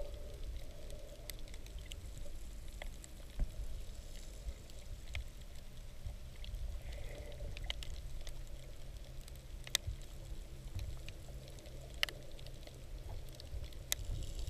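Underwater ambience picked up through a camera housing: a steady low rumble of water with scattered crackling clicks and a few sharper snaps.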